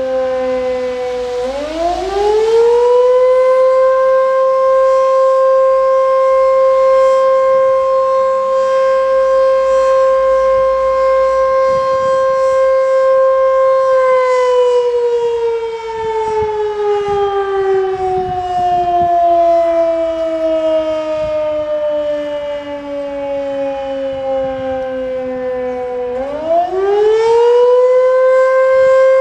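WWII-era L138 combination electric siren, a 1 kW machine, sounding the fire-alarm signal for a test. It winds up to a steady tone about a second and a half in, holds it for about twelve seconds, winds down slowly over the next twelve, then winds up again near the end.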